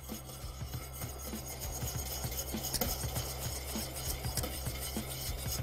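Wire whisk beating a thin chocolate ganache in a stainless steel saucepan, the wires scraping and clicking against the metal bottom and sides without pause.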